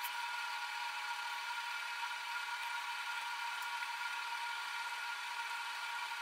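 A steady whir with a hiss, even in level, with no single strokes or knocks standing out.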